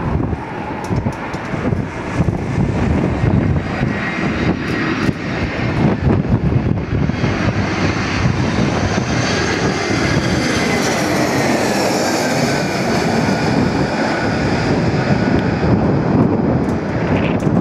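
easyJet Airbus A320-family jet on final approach with gear down, its twin jet engines rumbling and whining at approach power as it passes low overhead. The whine drops in pitch as the plane goes by, about two-thirds of the way through. Wind buffets the microphone.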